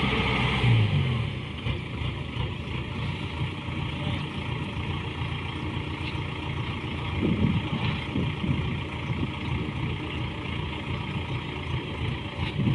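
Engine of rice-harvesting farm machinery running steadily, with a dense mechanical drone.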